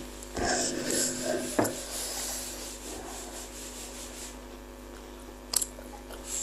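Close-miked eating sounds of a person chewing: soft wet mouth noises, with a sharp click about one and a half seconds in and another near the end.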